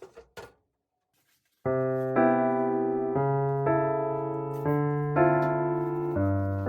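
Background music: a light electric-piano tune starts about a second and a half in, its notes changing about twice a second. Before it come a few short soft clicks and a brief silence.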